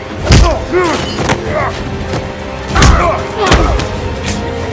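Heavy punch impacts from a film fist fight, several in a row with the loudest about a third of a second in and near three seconds, mixed with men's straining grunts over a dramatic music score.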